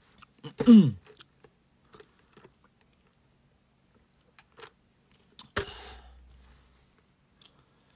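Plastic cup of iced drink being handled and sipped through a straw: small clicks and rattles, a short tone falling in pitch about half a second in that is the loudest sound, and a louder clatter with a rustling tail about five and a half seconds in.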